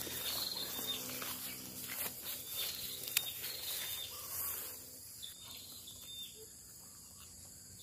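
Outdoor rural ambience with insects shrilling steadily at a high pitch, over faint rustling and one sharp click about three seconds in; the rustling dies down after about five seconds.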